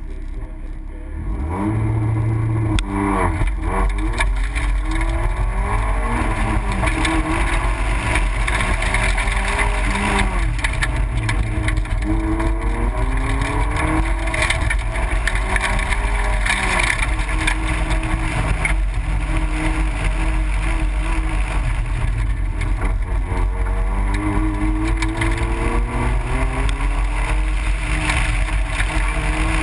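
Car engine pulling hard from a standing start about two seconds in, then rising and falling in revs again and again as the car accelerates and slows between the cones of an autocross run.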